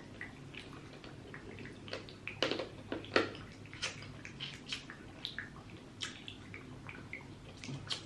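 Wet, close-up eating sounds of seafood-boil crawfish being peeled and eaten: a string of short shell cracks, squelches and mouth smacks, the loudest a little after two and three seconds in.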